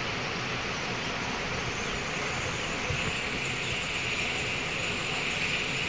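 Rain-swollen drain rushing with fast, muddy floodwater: a steady wash of water noise that grows hissier about halfway through.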